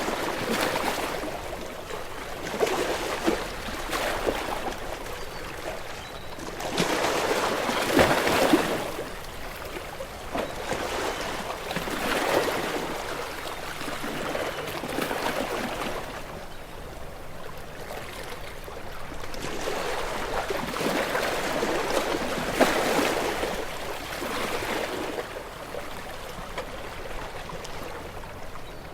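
Sea waves washing against shore rocks, surging and draining back every few seconds, with the loudest surge about eight seconds in.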